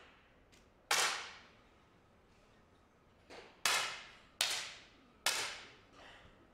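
10 m air pistols fired by several competitors in turn: four loud, sharp cracks and a couple of fainter ones a second or so apart, each with a short echoing tail.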